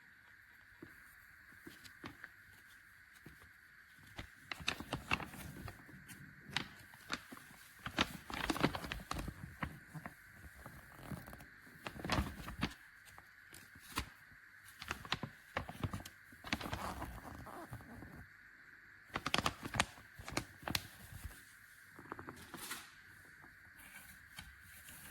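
Irregular rustling, clicks and knocks, as of objects being handled, over a faint steady high hum.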